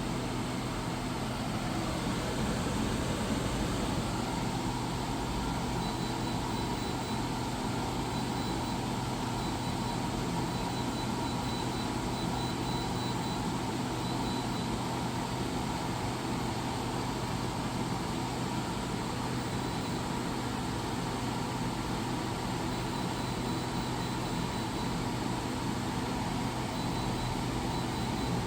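Reiwa CP-1201RB portable air conditioner running steadily: its fan's airflow rush with a low hum underneath.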